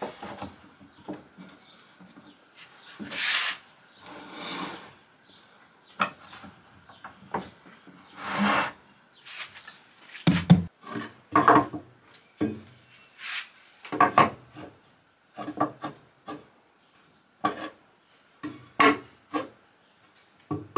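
Pipe clamps on steel pipes being positioned and tightened around a pine box: irregular clicks and knocks of the clamp jaws against pipe and wood, with two longer scraping slides about three and eight seconds in.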